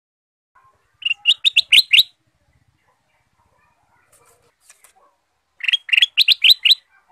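Ruby-throated bulbul (kutilang emas) singing: two short phrases of rapid, clear notes, one about a second in and another about four and a half seconds later, each lasting about a second.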